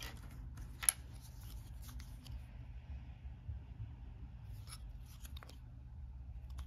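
Light clicks and rubbing of thin cardboard game standees being handled and turned in the fingers, with one sharper click about a second in.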